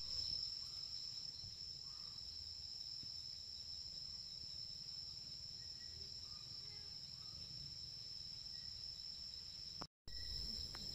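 Insects, crickets by their sound, trilling as one steady high-pitched drone over a low rumble. It breaks off for a moment near the end and then resumes.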